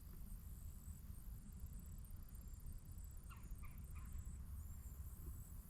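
Faint steady low rumble, with three short high animal calls close together a little past the middle.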